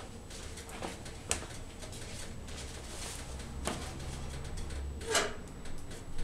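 Wood fire burning in a wood stove, crackling steadily, with four sharper pops; the loudest comes about five seconds in.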